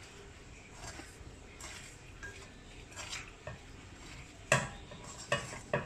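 Hands tossing spice-coated needlefish pieces around in a metal pan, the pieces rubbing and knocking against its sides, with a few sharp knocks on the pan in the second half, the loudest about four and a half seconds in.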